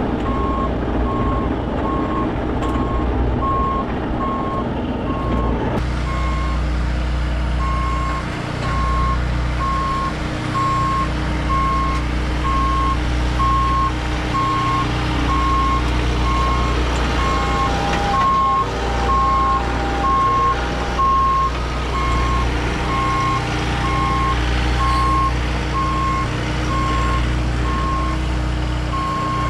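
Backup alarm on compact heavy equipment beeping steadily about once a second as the machine travels in reverse, over the steady low running of its diesel engine.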